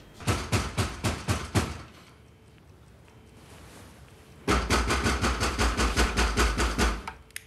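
Knocking on a door: a run of about six knocks, a pause of about three seconds, then a longer, faster bout of knocking at about six knocks a second that stops shortly before the end.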